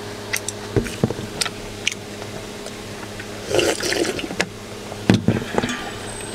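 Slurping broth straight from a stainless steel bowl about three and a half seconds in, after light clicks of chopsticks and eating noises. Just after five seconds comes a sharp knock, the bowl being set back down on the table.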